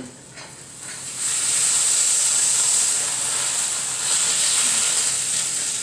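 Hot drippings sizzling in a stainless stovetop smoker pan as a spatula lifts a smoked salmon fillet off the rack, a steady high hiss that starts about a second in.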